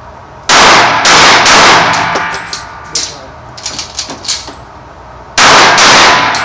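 Gunshots at a shooting range: three quick, very loud shots about half a second apart in the first second and a half, lighter clicks and clinks in the middle, then another loud shot near the end.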